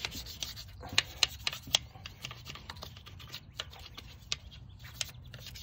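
Small hand brush scrubbing brake dust off an alloy wheel between the spokes: an irregular run of short scratches and sharp clicks, several a second, as the bristles and brush catch on the spokes.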